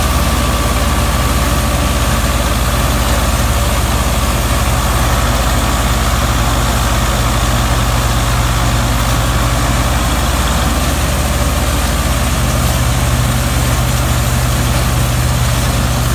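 Belarus 510 tractor's four-cylinder diesel engine running steadily under load as it drives a PTO straw chopper, a loud, even drone with the chopper's steady rushing machine noise over it.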